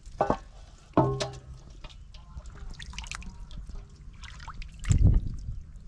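Water dripping and pouring from a woven bamboo basket as it is tipped out over a metal basin, with sharp knocks just after the start and about a second in, the second ringing briefly. A louder, deeper splash of water comes near the end.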